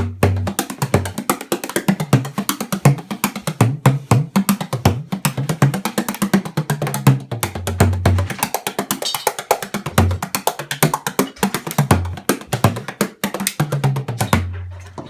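13-inch Rohan Young tunable dodecagonal bodhrán played with a click tipper: a fast, steady run of sharp strokes over the drum's deep tone, which shifts between lower and higher notes.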